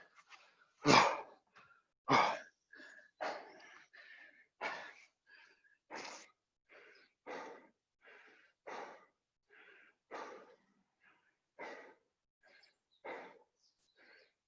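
A person breathing hard from the exertion of burpees: short, forceful puffs of breath about every second and a half, the strongest near the start.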